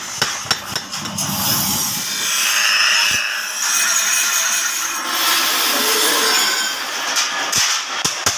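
Metalworking sounds: hammer blows on steel, then several seconds of steady rasping from metal being worked, then more sharp knocks near the end.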